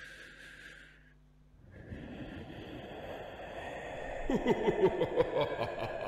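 Title-sequence sound effects: a hiss stops about a second in. A swelling noisy rumble follows, with a run of about six quick falling pitched sweeps in the middle of it.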